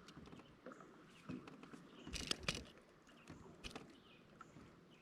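Faint, scattered light knocks and rustles of handling on a small fishing boat, with a short cluster of louder taps a little past the middle.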